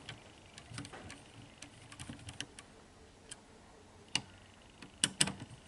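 Scattered light clicks and taps of a screwdriver and small parts being handled while the screw holding a DVD drive's pickup guide shaft is fastened, the loudest few near the end.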